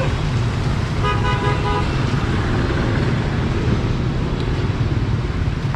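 Steady road traffic noise with a low rumble, and a vehicle horn honking once, briefly, about a second in.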